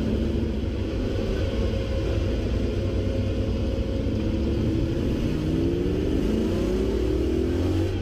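Off-road rally vehicle's engine running as the vehicle pulls away slowly from the start. The low rumble is steady, and the engine note climbs several times in the second half as the revs rise.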